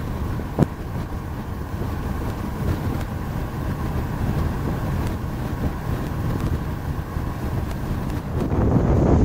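Steady road and engine rumble heard inside a moving vehicle's cabin, with a single faint click about half a second in. Near the end it gives way to louder wind buffeting the microphone.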